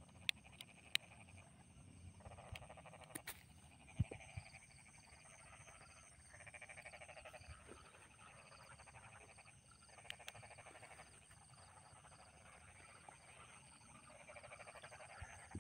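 Faint frogs croaking in bouts of rapid pulsed calls, each a second or two long, over a steady high cricket trill. A few sharp clicks, mostly in the first four seconds.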